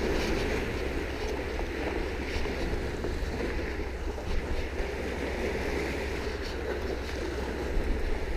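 Steady wind buffeting the microphone, with sea water washing and lapping against the rocks and pilings.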